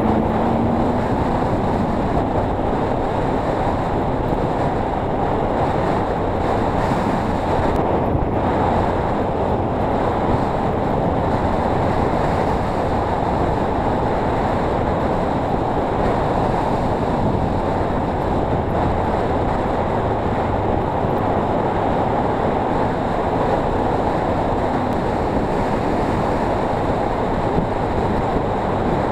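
Kawasaki KLE dual-sport motorcycle riding along a gravel track, its engine and tyre noise mostly covered by a steady rush of wind on the microphone.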